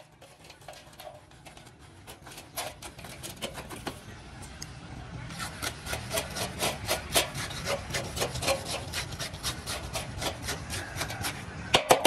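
Rapid repeated scraping strokes, faint and sparse at first, then quicker and louder from about five seconds in.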